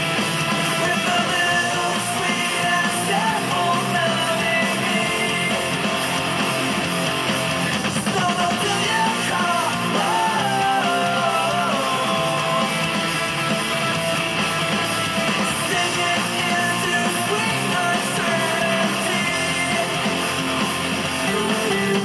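Rock music with strummed guitars and singing, played as a hockey team's goal song.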